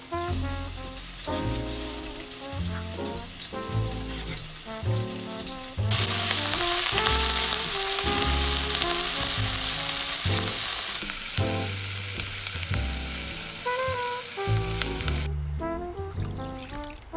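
Diced onions sizzling in hot oil in a frying pan, starting loud about six seconds in and cutting off suddenly near the end. Background music with a bass line plays throughout.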